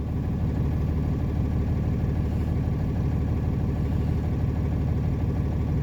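A flatbed truck's engine running steadily at a low, even speed, with no revving.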